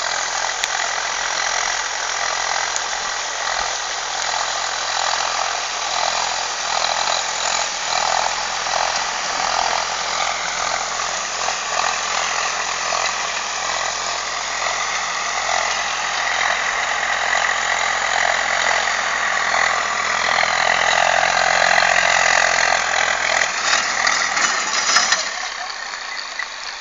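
Engine of a cable-and-pulley winch rig running steadily, dropping in level near the end.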